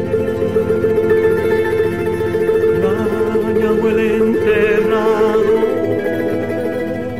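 Music from a sung version of the poem: plucked string instruments accompany a melody line with vibrato, in an instrumental passage between sung verses.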